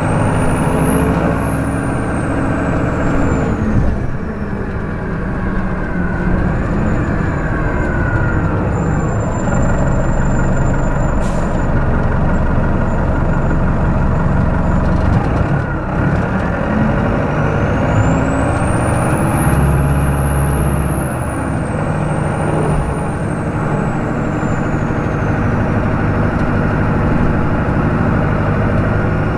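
Detroit Diesel Series 50 8.5-litre four-cylinder diesel in a New Flyer D40LF transit bus, heard close up running under way through its Allison five-speed automatic, pulling and easing off. A high whine rises and falls with the engine twice, once near the start and again past the middle.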